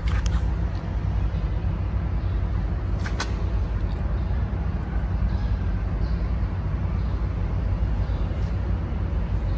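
Steady low background rumble, with two brief clicks, one right at the start and one about three seconds in.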